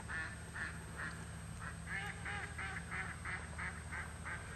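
Faint quacking, duck-like calls in a steady series of short notes, about three a second.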